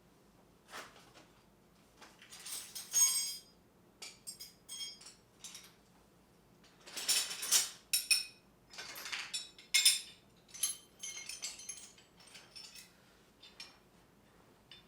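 Metal hand tools clinking and clattering against each other as they are picked up and set down, in irregular clusters of sharp clinks with brief metallic ringing; the loudest clusters come about three seconds in and again from about seven to ten seconds in.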